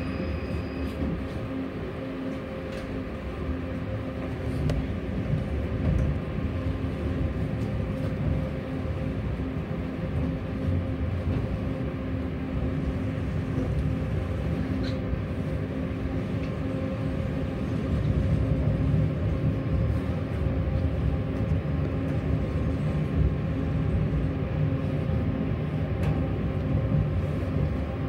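Tram on the move: a steady rumble of wheels on rails with a steady hum and occasional light clicks, growing louder about two thirds of the way through.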